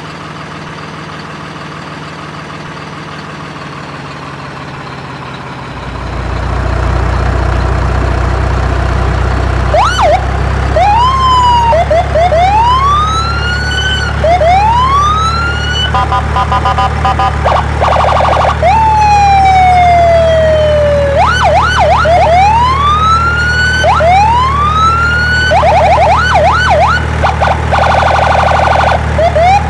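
A steady low drone that gets louder about six seconds in, then from about ten seconds electronic siren sounds over it: repeated rising wails, one long falling tone, and bursts of quick yelping chirps and warbles.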